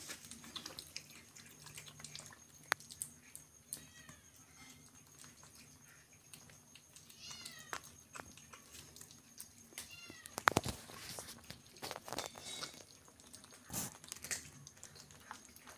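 Kittens eating from a plate, with scattered small clicks and knocks of chewing and the plate, the sharpest a little past the middle. About three short, high meows come through, the middle one a short run of calls.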